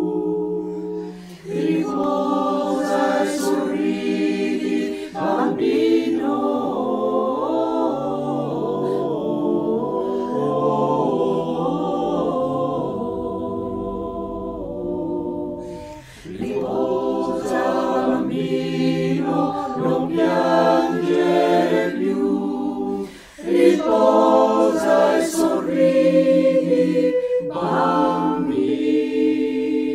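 Mixed men's and women's amateur choir singing a lullaby in several-part harmony, apparently a cappella, with short breaks between phrases. The voices were recorded separately at home and mixed into one virtual choir.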